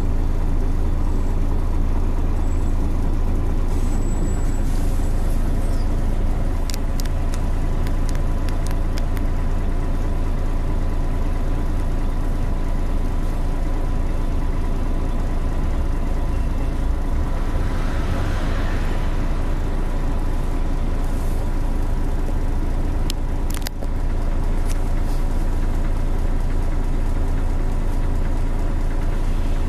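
Scania L113CRL bus's rear-mounted diesel engine running steadily, heard from inside the passenger saloon as a constant low drone with a thin steady whine. A few sharp clicks and rattles come through, and a brief hiss about eighteen seconds in.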